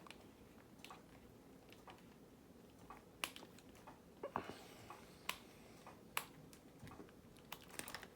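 Faint scattered clicks and taps from handling the hard plastic parts of a robotic parrot toy during disassembly, with a brief rustle about halfway through.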